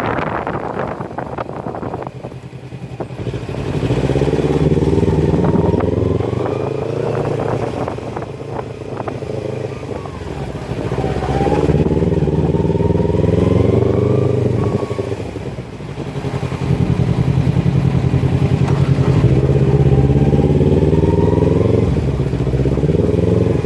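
Kawasaki Ninja 250 Fi parallel-twin engine through a Scorpion full-system exhaust with no dB killer, pulling up through the revs in three long climbs, the pitch rising over several seconds and dropping between them.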